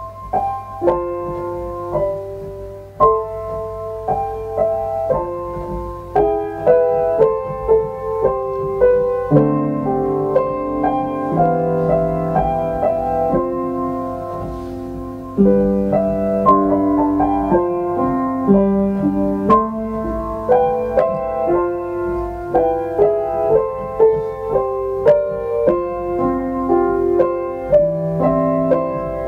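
Solo piano music, a gentle melody of single notes over chords, played at an even pace.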